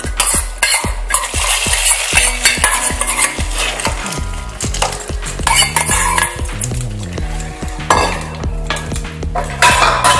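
A metal spoon scraping hot tempering oil with mustard seeds, dry chillies and curry leaves out of a small pan into a pot of sambar dal, the oil sizzling as it meets the dal, then the spoon stirring the dal and clinking against the pot.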